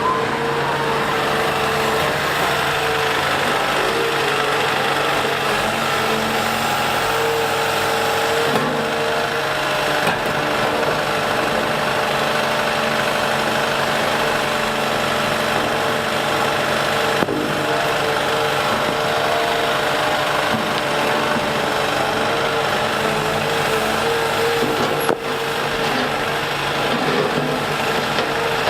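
Liebherr A 910 compact wheel excavator's diesel engine running steadily, with a steady whine over it and a few sharp knocks.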